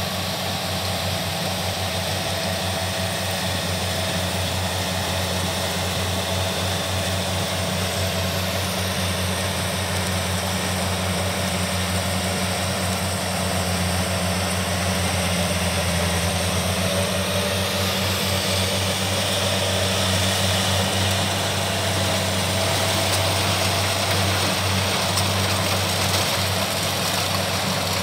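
Kubota rice combine harvester running steadily under load while cutting and threshing rice, a constant low engine hum over a broad mechanical drone. It grows slightly louder as the machine draws nearer.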